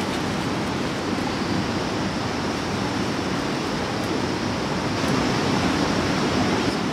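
Steady rush of running water, slightly louder near the end.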